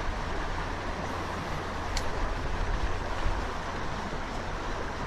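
Steady rush of a trout stream's running water, with a low rumble underneath.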